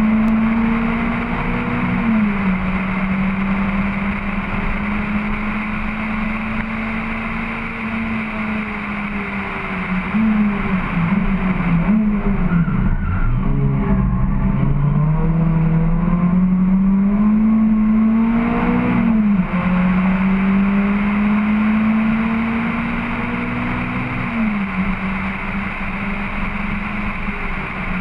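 Honda H22 2.2-litre four-cylinder engine of a Civic EG hatchback at full throttle on track, its pitch climbing steadily through each gear and dropping sharply at upshifts about two seconds in, near two-thirds through and again near the end. Around the middle it falls away and wavers low as the car lifts and shifts down for a corner, then pulls up again, with wind noise rushing over the camera throughout.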